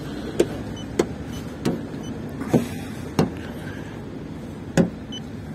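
About six sharp clicks at irregular intervals over a steady low background hum: the probe of a paint thickness gauge being set against a car's body panels for readings.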